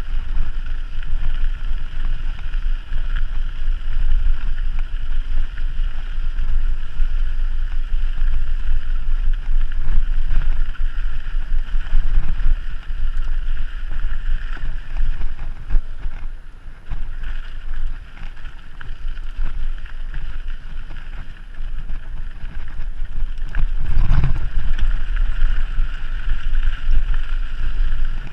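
Mountain bike riding along a dirt trail: steady wind rumble on the microphone with tyre and ride noise, easing off briefly past the middle and with a sharp jolt about 24 seconds in.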